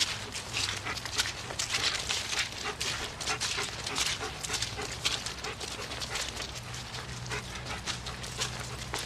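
A German Shepherd dog close by, with many quick, irregular scuffs and clicks throughout.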